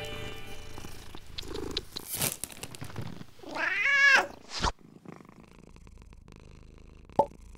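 A domestic cat meows once, a single call that rises and then falls in pitch, about three and a half seconds in. Before it there is scattered rustling and a few clicks.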